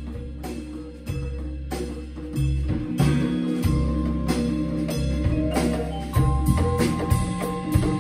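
Live blues-jazz band jamming: vibraphone struck with mallets over upright bass notes, with drums and hand percussion, the band growing louder in steps as it builds.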